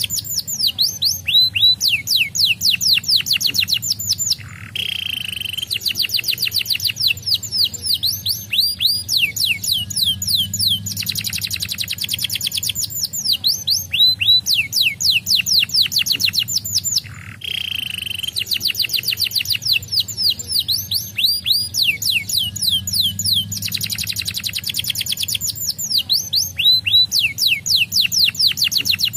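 Domestic canary singing: long, rapid rolls of quickly repeated falling whistled notes, with a couple of short breaks between phrases. A faint steady low hum sits underneath.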